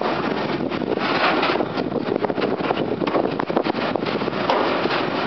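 Loaded container wagons of a freight train rolling slowly past close by over a temporary girder bridge: a steady rumble of steel wheels on the rails, broken by repeated sharp clicks and knocks.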